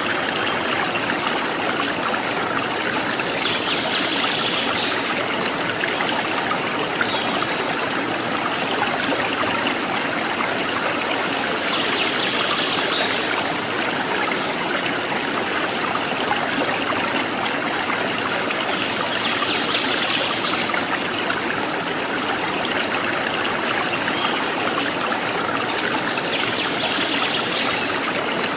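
Forest stream babbling and trickling steadily, with a wild bird's short high call recurring about every eight seconds.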